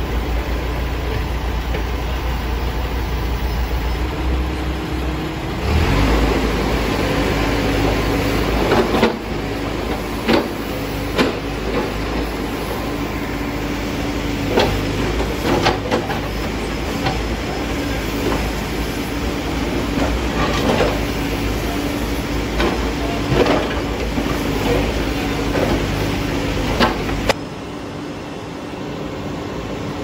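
Hidromek backhoe loader's diesel engine running under digging load, stepping up in level about six seconds in and easing off near the end. Sharp knocks and scrapes come every few seconds as the bucket bites into soil and loose paving stones.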